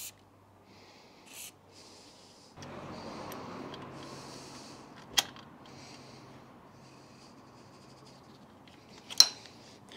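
Quiet hand-tool work on a motorcycle brake-pipe union bolt: a spanner being fitted to and turned against a small bolt that won't budge, with glove and pipework rustling. Two sharp metallic clicks, near the middle and near the end. A faint steady hum comes in about two and a half seconds in.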